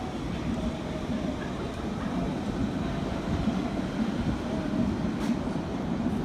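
Train running with steady low rail noise and a faint steady whine.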